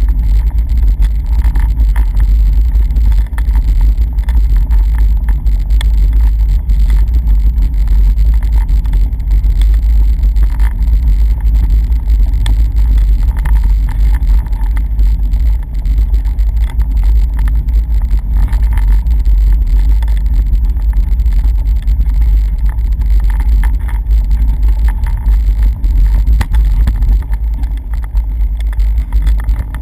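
Wind buffeting the camera microphone: a steady, heavy low rumble with no clear engine note.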